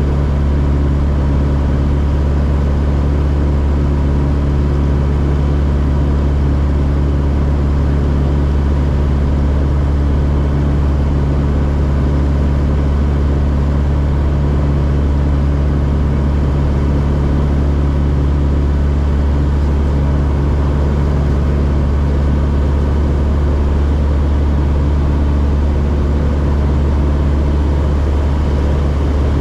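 Socata TB9 Tampico's four-cylinder Lycoming O-320 engine and propeller droning steadily in cruise power, heard from inside the cockpit.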